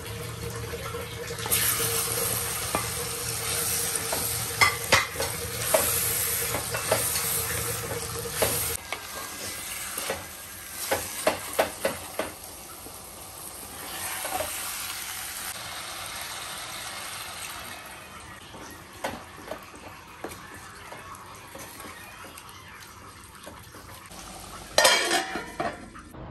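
Raw beef pieces sizzling as they go into hot fried spices in a clay pot, stirred with a wooden spatula that knocks against the pot. A steel lid clatters onto the pot near the end.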